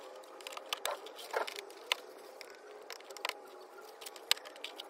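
Sharp, irregular plastic clicks and taps as push-in trim clips on a Mitsubishi Pajero's wheel-arch liner are prised and popped loose with a small hand tool, the loudest click near the end.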